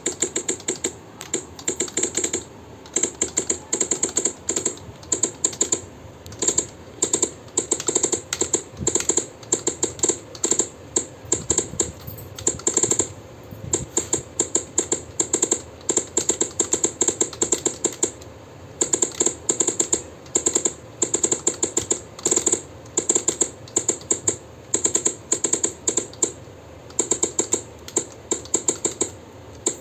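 Fast typing on a low-profile computer keyboard: rapid key clacks in bursts of a second or two, with short pauses between them.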